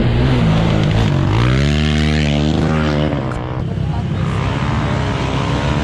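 Sport quad (ATV) engine racing on the circuit: it revs up, rising in pitch about a second and a half in, then drops back off about three seconds in.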